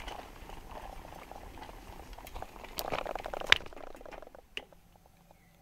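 Bicycle rolling over a rough dirt track through undergrowth: tyres crackling on the ground and plants brushing against the bike, with a sharp knock about three and a half seconds in. It goes much quieter near the end.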